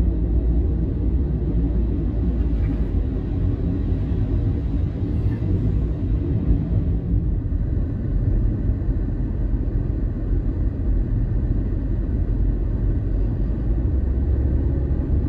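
Steady low rumble of road and engine noise inside a vehicle driving on a wet, snow-covered highway.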